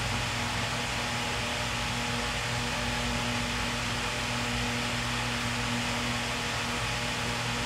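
Steady electric hum with an even airy hiss, the constant drone of a running fan-type motor in the shop; no separate clicks or knocks from the hand work are heard.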